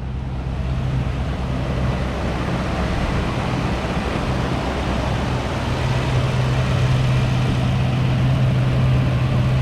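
Toyota Tundra's 4.7-litre V8 running steadily with a constant low hum, a little louder near the end, on freshly replaced ignition coils that had been cracked and causing misfires.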